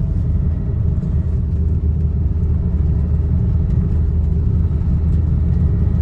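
A Maruti Ciaz car being driven: a steady low engine and road rumble with no changes.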